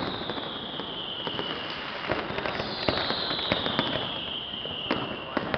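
A fireworks display: aerial shells crackling and popping in quick bursts over a steady hiss. Twice a whistling firework gives a long whistle that falls in pitch, the first fading out in the second second, the second running from about two and a half seconds in to near the end.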